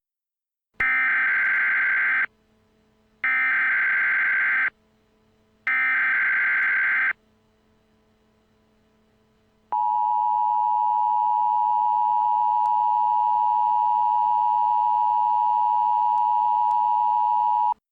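Emergency Alert System tones: three short bursts of SAME header data tones, each about a second and a half long. After a pause comes the steady two-tone EAS attention signal, held for about eight seconds, which marks the start of an emergency alert.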